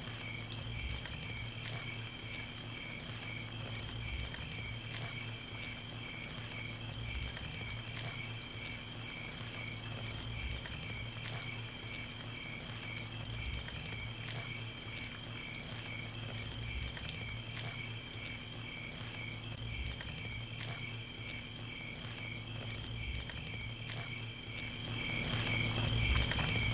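A steady chorus of insects such as crickets: high, rapidly pulsing trills that run without a break over a low steady hum. It grows a little louder near the end.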